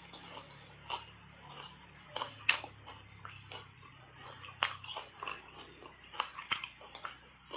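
Ice coated in matcha tea powder being bitten and crunched in the mouth: sharp crunches every second or two, the loudest about two and a half and six and a half seconds in.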